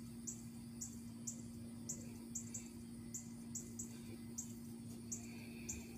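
Faint outdoor background: short high chirps repeating unevenly, about two to three a second, over a steady low hum.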